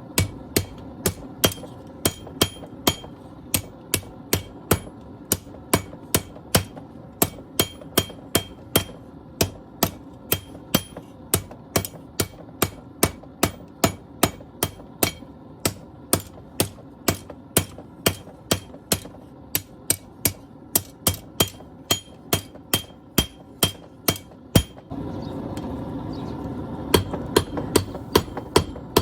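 Hammer blows on hot steel against an anvil while forging a machete blade, about two to three ringing strikes a second. Near the end the strikes pause briefly, a louder steady rushing noise comes in, and the hammering resumes over it.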